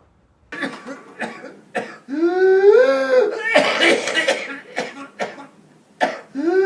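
A whooping cough fit: a run of short, harsh coughs, then a long high-pitched whooping intake of breath that rises in pitch, more coughing, and another drawn-out wavering whoop near the end. This is the gasping for air after a coughing fit that gives pertussis its name.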